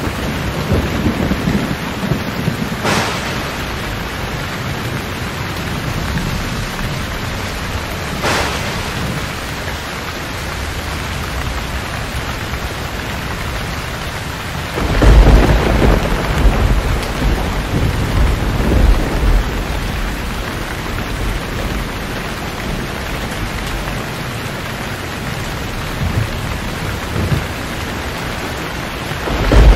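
Thunderstorm: steady heavy rain with rolling thunder. Two short, sharp cracks come in the first ten seconds. About halfway through, a loud deep rumble breaks and rolls on for several seconds, and another rumble starts right at the end.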